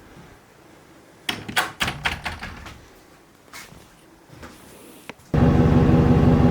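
A short burst of knocks and clatter about a second in. Near the end, a loud, steady vehicle engine drone cuts in abruptly.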